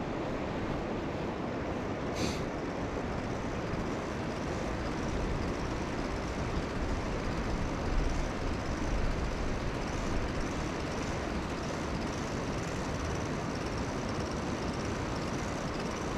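Steady rush of a fast-flowing trout stream, with a brief click about two seconds in.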